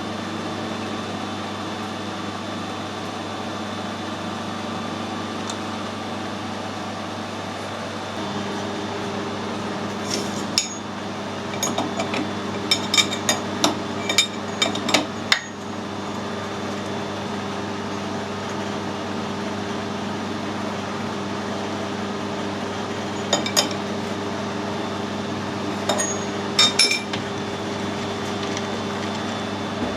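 Light metallic clinks and taps of steel tools and parts being handled, in two clusters, over a steady motor hum whose tone shifts slightly about a quarter of the way in.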